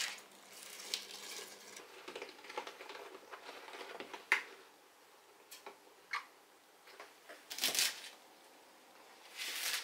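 Cabbage leaves rustling and squeaking as they are packed into a silicone storage bag, with a few sharp clicks. Near the end a knife slices through a bunch of garlic chives onto a wooden cutting board.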